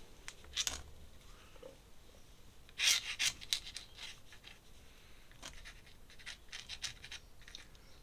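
Ink brush scratching and dabbing on drawing paper: a scatter of short scrapes and taps, loudest in a cluster about three seconds in, then a run of small quick ticks.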